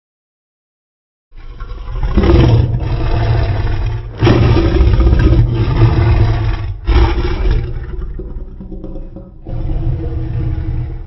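Custom Godzillasaurus monster roar sound effect, built from slowed-down animal and dinosaur roars: several deep, rumbling growling roars, each a few seconds long, starting after about a second of silence.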